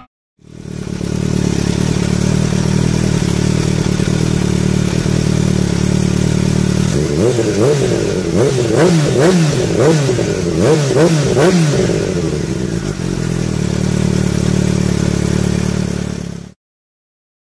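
Kawasaki Ninja H2's supercharged 998 cc inline-four, breathing through an Akrapovic exhaust, idling steadily with the bike standing still. From about seven seconds in it is revved in a rapid series of sharp throttle blips for about six seconds, then settles back to idle before cutting off abruptly.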